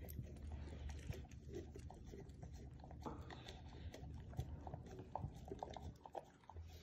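A doodle eating from a stainless steel bowl: faint, irregular chewing with many small clicks.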